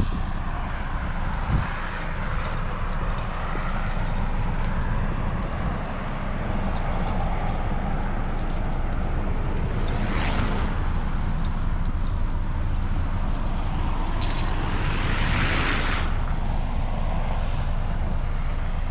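A vehicle engine running with a steady low rumble, and two swells of hiss, about halfway through and again near the end.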